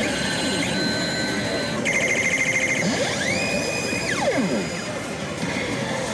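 Electronic sound effects from an Oshi! Salaryman Banchou pachislot machine: a rapid beeping trill about two seconds in, then a tone that sweeps up, holds and drops back down, over the steady din of a slot hall.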